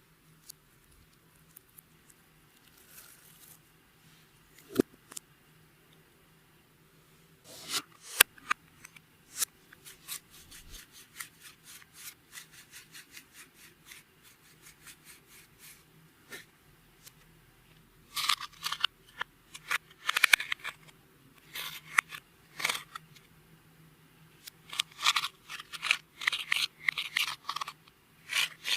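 Clear slime being mixed, giving sharp clicks and pops. They come only now and then at first, then in quick crackling runs from about a quarter of the way in.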